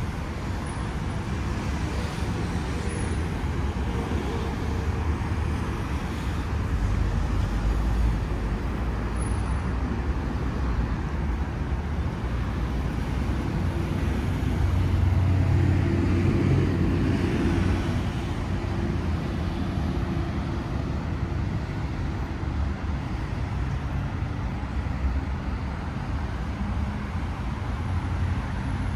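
Steady city road traffic, a low rumble of passing cars, swelling as a vehicle goes by about halfway through.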